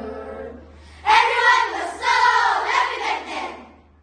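A group of children's voices in unison, performing choral speaking. A phrase trails off in the first second, then a louder phrase starts about a second in and fades near the end.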